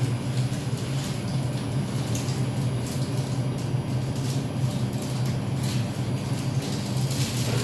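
Interior of an R142 subway car running, with a steady low hum and rumble and scattered light rattles and clicks from the car body.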